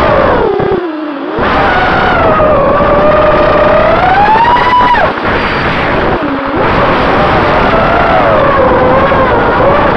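Brushless motors and propellers of an FPV race quadcopter (EMAX 2205 motors on a 3-cell battery) whining, their pitch rising and falling with the throttle. The pitch drops sharply about a second in, climbs to its highest about five seconds in, then falls off suddenly. Steady air rush runs underneath, heard from the quad's onboard camera.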